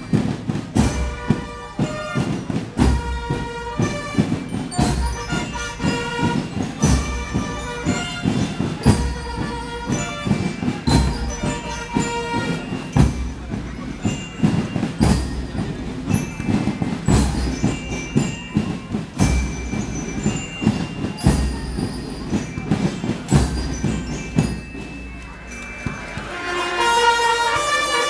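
Military marching band playing: bass drums, snare drums and cymbals keep a steady marching beat with short trumpet phrases over it. Near the end the drums ease off and the brass comes in together with held, louder chords.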